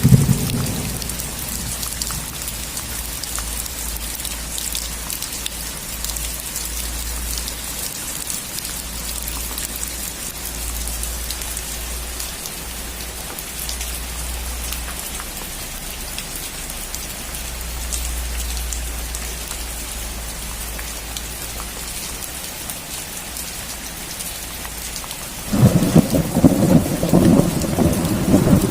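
Steady heavy rain falling on a roof, with a loud clap of thunder rumbling in a little before the end; the tail of an earlier thunderclap fades out at the very start.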